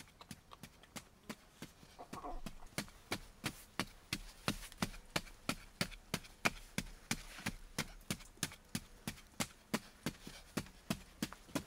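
A hand hoe chopping into dry, hard-packed soil in quick regular strikes, several a second, loosening it into clods. A kitten mews once about two seconds in.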